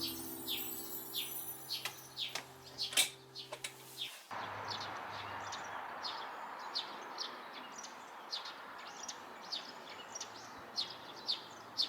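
Small birds chirping over and over, short high chirps that drop in pitch, roughly two a second. Soft background music with held notes plays under them and stops about four seconds in.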